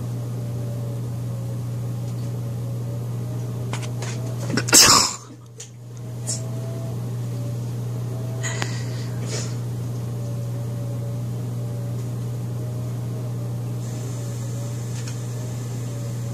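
Steady mechanical hum with a faint wavering higher tone, like a running fan or appliance motor. A short loud burst of noise comes about five seconds in, and a few faint clicks follow a few seconds later.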